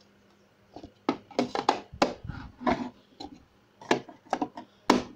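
Novelty mugs and their removable inner cups being handled and set on a wooden table: a run of sharp clicks and knocks, with an inner cup pushed back into its mug.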